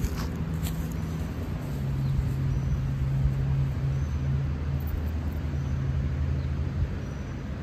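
A steady low engine hum with road traffic noise; the hum's pitch drops slightly about two seconds in.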